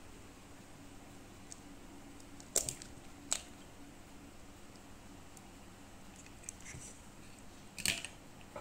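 Eggs being cracked on the rim of a stainless steel mixing bowl: two sharp taps a little under a second apart, faint shell crackles, and another sharp tap near the end.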